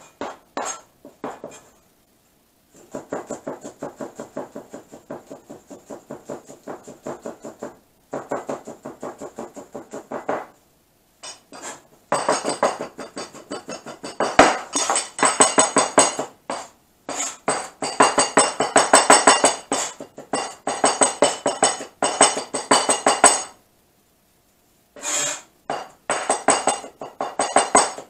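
Chinese cleaver rapidly chopping garlic on a plastic cutting board: runs of quick, even knocks broken by short pauses, the runs growing faster and louder about twelve seconds in as the garlic is minced fine.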